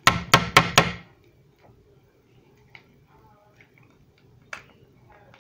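Four sharp, loud clicks in quick succession, about four a second, followed by faint scattered clicks.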